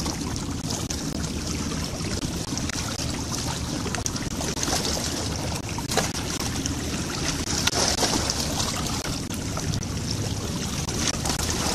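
Shallow bay water lapping and sloshing against shoreline rocks, a steady wash of water noise. About six seconds in, a short splash as a bait net hits the water.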